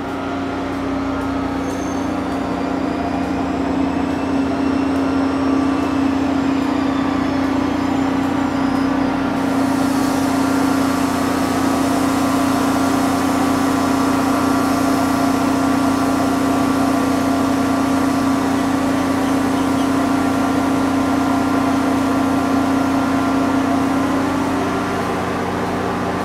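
A Connecticut DOT diesel locomotive and its commuter coaches roll to a stop beside the platform. The diesel engine runs with a loud, steady drone, with a few faint high squeals in the first several seconds and a hiss coming in about ten seconds in.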